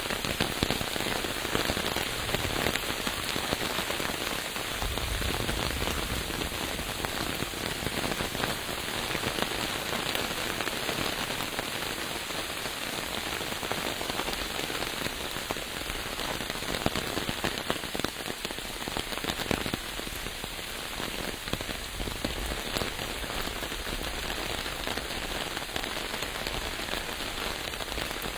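Steady rain falling, with a dense, even spread of close individual drop hits over the downpour.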